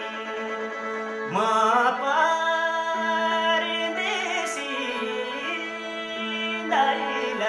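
Live singing of a Nepali Teej folk song: a voice gliding between long held notes over a steady sustained accompaniment drone.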